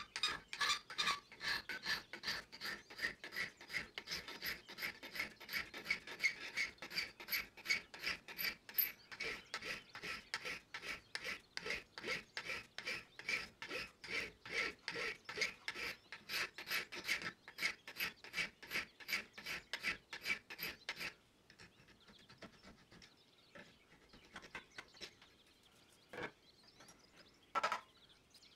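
Flat hand file rasping back and forth across the saw-cut edge of a piece of metal angle held in a bench vise, about three even strokes a second, dressing the rough cut smooth. The filing stops about three-quarters of the way through, and two short knocks follow near the end.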